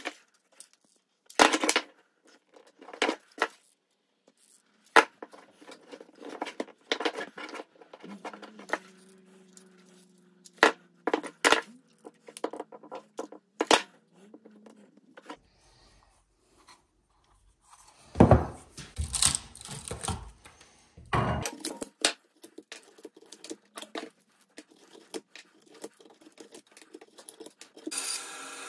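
Knocks, taps and clatter of white plastic mold pieces handled and fitted together on a wooden workbench, with a stretch of tearing a little past halfway. Near the end a bandsaw starts running.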